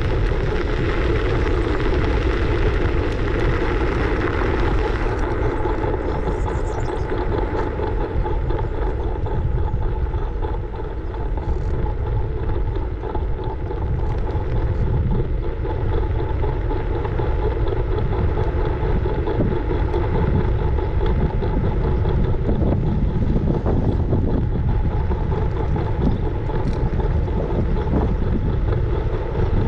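Riding noise from a scooter: wind rushing over the action camera's microphone and steady road rumble from the wheels, with a constant thin whine.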